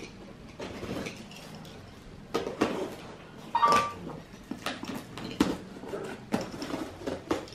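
Knife blade slitting and scraping along the packing tape on a cardboard box, with irregular scratches, taps and rustles of the cardboard.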